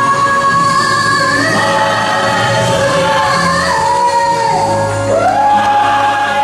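Worship music: singers holding long notes and sliding from one pitch to the next over steady accompaniment, in a gospel style.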